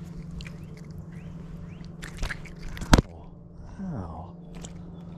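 A small smallmouth bass being handled and unhooked from a topwater frog lure: soft handling noises and clicks, with one sharp loud click about three seconds in and a short low falling tone soon after. A steady low hum runs underneath.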